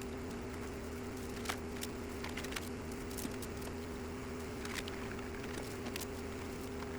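Portable generator running steadily, a constant hum with two held tones, with scattered sharp clicks and taps over it.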